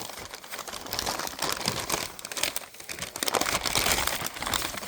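Small plastic bag crinkling and rustling as it is handled and opened by hand, in irregular crackly bursts.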